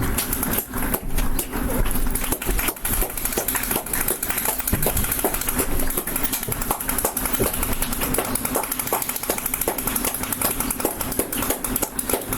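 Street applause: many people clapping continuously, with sharp knocks and bangs mixed into the clapping.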